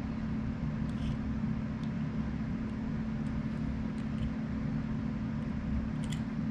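A steady low background hum with a few faint light clicks, about a second in and near the end, from pliers bending a small metal tab on a power seat switch.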